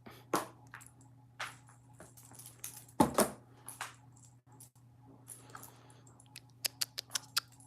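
Scattered small clicks, light knocks and rattles from a kitten at play, with a louder knock about three seconds in and a quick run of clicks near the end.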